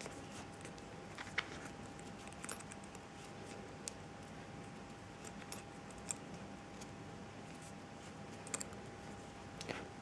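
Quiet handling sounds of paracord being worked into a knot on a bag's metal zipper pull: a faint rustle with scattered light clicks, about seven in all, over a faint steady hum.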